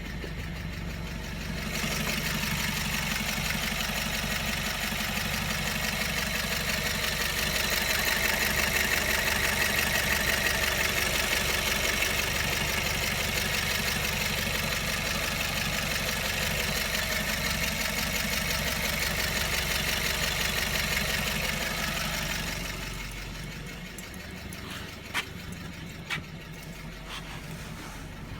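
BMW 1 Series engine idling at a steady speed with a fast, even metallic rattle that swells about two seconds in and fades back near the end; the owner suspects the timing chain. Two sharp clicks near the end.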